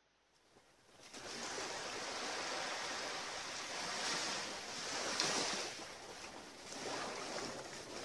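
Small waves washing onto the shore, starting about a second in and rising and falling as each wave comes in.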